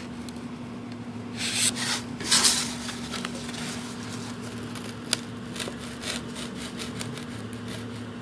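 Utility-knife razor blade sawing through thick foam: a rough, squeaky rasp. Two louder strokes come between about one and three seconds in, then fainter scraping with a few small clicks.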